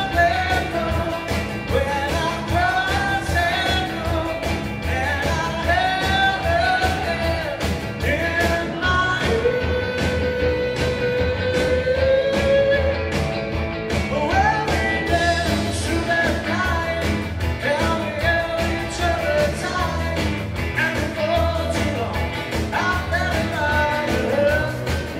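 A live 1960s-style British beat band playing rock and roll: electric guitars and drums with a lead vocal, including one long held note about ten seconds in.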